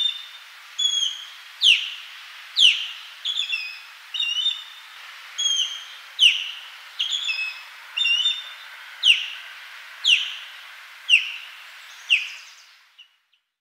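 Osprey calling: a series of sharp, down-slurred whistled calls about once a second, mixed with quicker clipped double notes, over a faint steady hiss.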